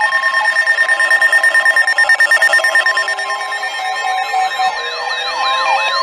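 Several weather alert radios going off together for a severe thunderstorm warning: steady alert tones with fast beeping. About halfway through, a wavering siren-like whoop joins in.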